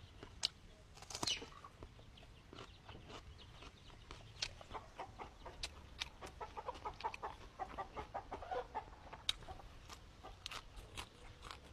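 Chickens clucking, a run of short repeated clucks in the middle, among scattered sharp clicks and taps.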